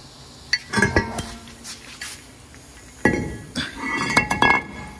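Metal tools and steel brake parts clinking and clanking against each other as they are handled. The sound comes in two bunches of sharp knocks with a ringing tone, a short one about a second in and a longer one from about three seconds to near the end.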